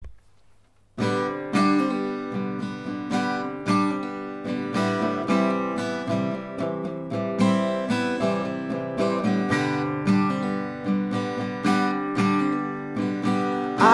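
Solo acoustic guitar playing a song's instrumental introduction: a steady pattern of plucked and strummed chords, starting about a second in after a brief silence.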